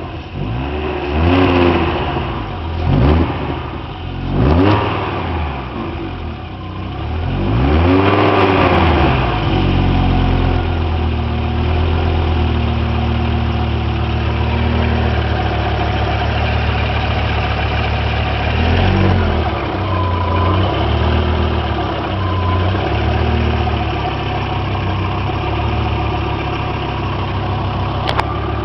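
Audi Coupe Quattro 2.3 20-valve inline-five engine blipped four times in quick revs, then settling to a steady idle with a few small blips. The owner says it runs like a chaff cutter, a strange noise coming from the front of the engine near the timing belt pulley, cause unknown.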